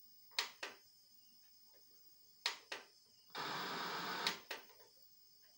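A CRT TV worked from its front-panel buttons: pairs of short sharp clicks, three times, and about a second of static hiss from the TV's speaker in the middle, with no signal tuned in. This is the newly repaired sound output being checked.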